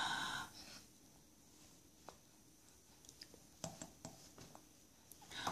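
A few faint, scattered small clicks and wet smacks as a baby is spoon-fed puréed food, in an otherwise quiet room.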